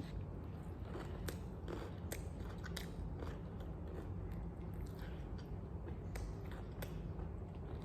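A person chewing a mouthful of fried chicken sandwich, with scattered soft crunches and mouth clicks over a low steady hum.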